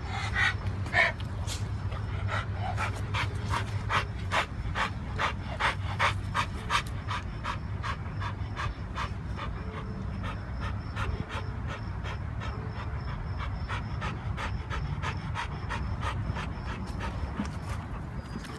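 Dog panting steadily, about three quick breaths a second, over a steady low hum.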